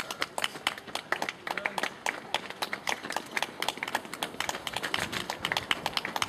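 Scattered hand clapping from several spectators: dense, irregular claps as runners come in.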